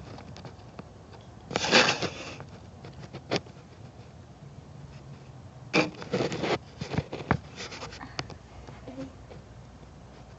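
Scattered rustling and rubbing with short knocks: a louder rustle about two seconds in, and a quick cluster of knocks and scrapes around six to seven seconds.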